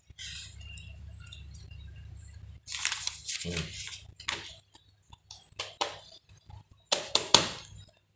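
Scattered short rustles and clatters over a low hum, starting about two and a half seconds in.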